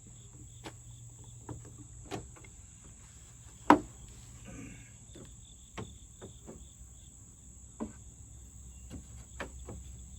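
Scattered light clicks and knocks, with one sharp knock about a third of the way in. Behind them is a steady, high chirring of crickets.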